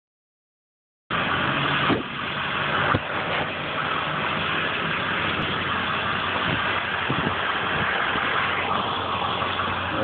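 An engine idling steadily, starting about a second in, with two sharp knocks about a second apart near the start.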